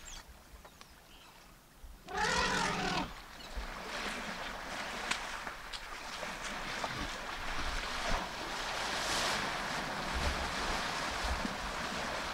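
An African elephant trumpets once, about two seconds in: a loud, wavering call lasting about a second. A steady rushing noise follows, with a few faint knocks.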